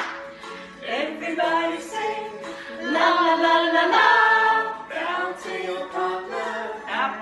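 Several women's voices singing a children's action song together, the held notes swelling loudest around the middle.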